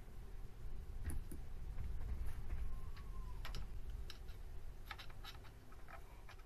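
Scattered light clicks and ticks of metal parts as a mini lathe's three-jaw chuck is turned slowly by hand, sweeping a dial test indicator, over a faint low rumble.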